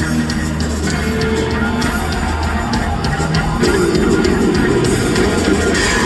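Live rock band playing: a sustained bass line under electric guitar, with steady drum and cymbal hits.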